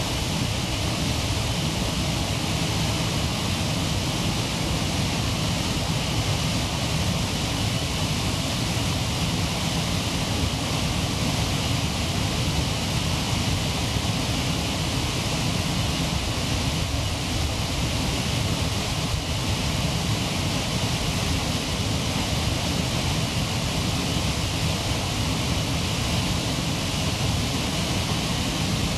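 Waterfall: the steady rush of falling water, an even, unbroken noise.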